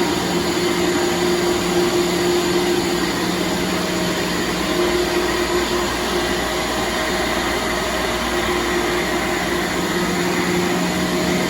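Ingersoll-Rand SSR-EP15U 15 hp rotary screw air compressor running steadily just after start-up: an even machine hum with a few held tones over a hiss.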